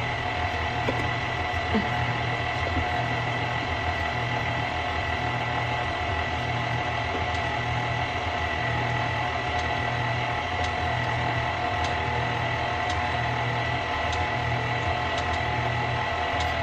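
KitchenAid Classic stand mixer running, its flat beater working thick peanut butter cookie dough as flour is added a little at a time. A steady motor hum with a low pulse about once a second.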